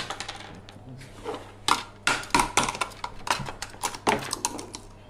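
A screwdriver prying and bending the metal top cover off a bare hard drive: a quick run of metallic clicks, clanks and scrapes, busiest in the middle.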